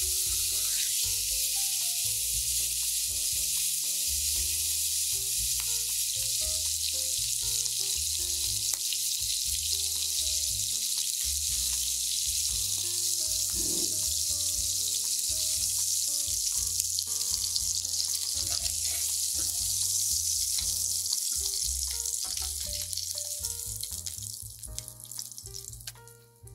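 Slabs of pork belly sizzling in their own rendered fat in a frying pan as they brown, a steady frying hiss that dies down over the last few seconds.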